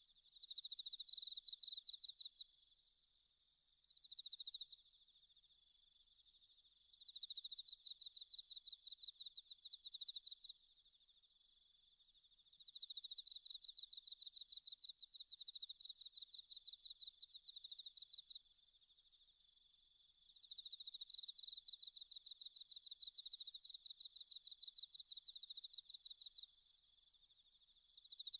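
Insects, likely crickets, trilling in repeated bouts of rapid high pulses, each bout lasting a second to several seconds with short pauses between.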